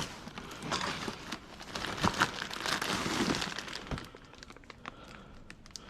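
Crinkling and rustling with small crackles and clicks as an unfamiliar item is picked up and handled, busiest for the first four seconds and then fainter.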